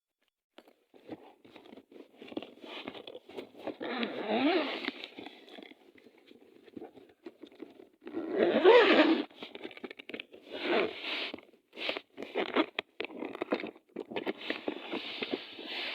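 Cartoon sound effects: irregular rustling, scraping and crunching. There are louder spells about four and nine seconds in, with short squeaky vocal glides mixed in.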